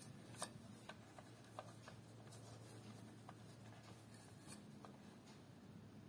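Faint clicks and light scraping of a small screwdriver tightening the tiny M.2 retaining screw on a motherboard. The clearest click comes about half a second in, with a few fainter ones scattered after it.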